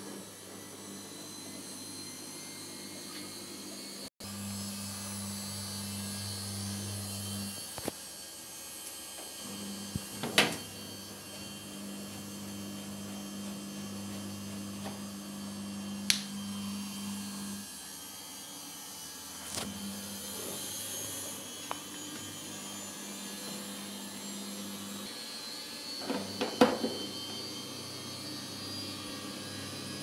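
A low electrical hum that switches on and off in stretches of several seconds, with a few sharp knocks and clicks from handling the washing machine's parts. The loudest knock comes about ten seconds in, and there is a cluster near the end.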